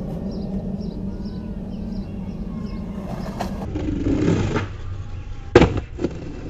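Skateboard landing on concrete: a low steady rumble, then a sharp loud clack of the board hitting the ground about five and a half seconds in, followed by a few lighter knocks as the skater lands a jump down a four-stair set.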